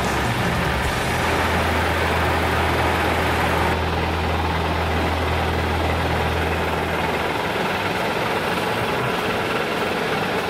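UD Trucks Quon tractor's diesel engine idling steadily, a low drone that weakens about seven seconds in.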